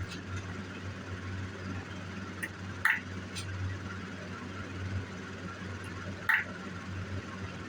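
Hammer striking a steel stamp into a metal buckle to tap in a feather design: two sharp metallic blows a few seconds apart, the first with a lighter tap just before it, over a steady low hum.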